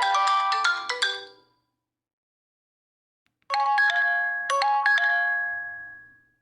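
Nokia 8000 4G default ringtones. A quick melody of bright chime-like notes ends about a second and a half in. After a short silence, another ringtone starts with a few struck bell-like notes that ring on and fade away.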